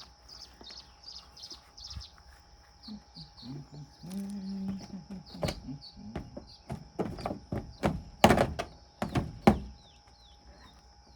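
A bird chirping a quick repeated call for the first couple of seconds, then a run of sharp knocks and clunks, like hard objects being handled and set down, loudest in the second half.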